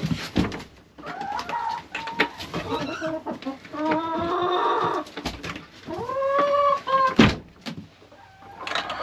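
Domestic hens clucking and making several drawn-out calls, the longest lasting about a second, with short knocks and scuffling between the calls.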